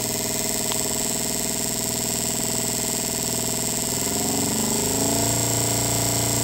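Spark plug on a TBI distributor test rig firing in rapid succession, a steady fast snapping buzz, with the coil wired to the correct polarity. About four seconds in the firing speeds up and the pitch rises and holds.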